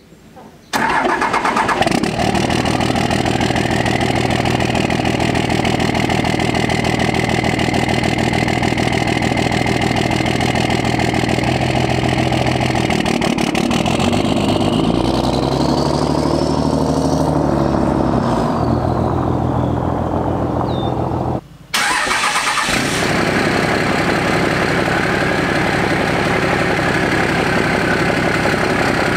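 Diesel pickup truck engine running loudly at a steady idle at the exhaust. Around the middle it is revved up and back down, with a high turbo whistle rising and falling along with it. The sound cuts out briefly about two-thirds of the way through, then the steady idle carries on.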